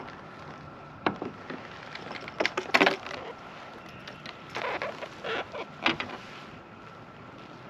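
Scattered knocks and clatter from handling on a kayak, loudest nearly three seconds in, with a faint steady hiss behind.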